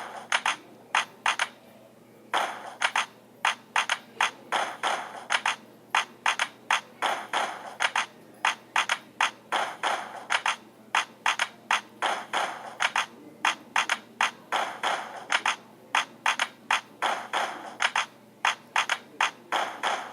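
Sharp ringing clicks in uneven runs of a few at a time, roughly two to four a second, broken by short pauses.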